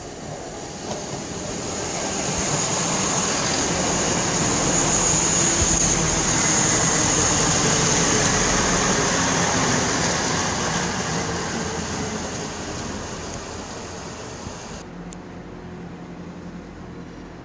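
A passing train: its noise builds over a couple of seconds, stays loud with a high-pitched edge, then fades away. About fifteen seconds in it breaks off abruptly to a quieter, steady low hum.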